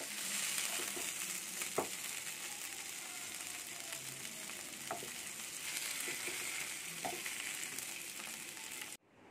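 Masala-coated sand whiting (kizhangan meen) shallow-frying in oil in a nonstick pan: a steady sizzle with a few light clicks as the pieces are moved. It cuts off abruptly near the end.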